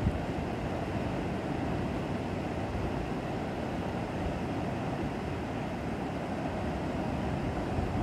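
Ocean surf breaking on a beach: a steady, even rush of waves.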